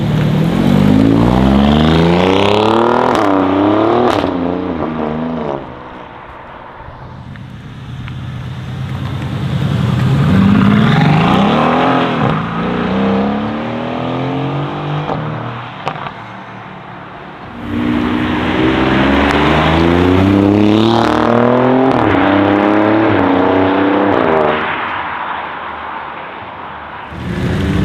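Alfa Romeo Giulia Quadrifoglio's 2.9-litre twin-turbo V6 accelerating hard away, revs climbing and dropping back through several quick upshifts. There are three separate loud pulls, one at the start, a shorter one in the middle and a long one from about 18 to 24 seconds in, with quieter engine sound between them.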